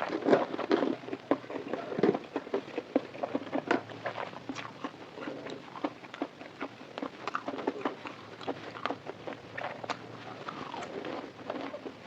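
Close-miked chewing of fried food: many irregular crunchy clicks, denser and louder in the first two seconds, then lighter chewing.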